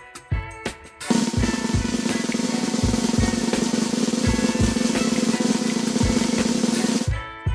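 Music with plucked notes and kick drum beats, then about a second in a sustained snare drum roll over a regular bass drum beat that stops abruptly near the end: the suspense drum roll sound effect of a prize-draw app while the winner is being drawn.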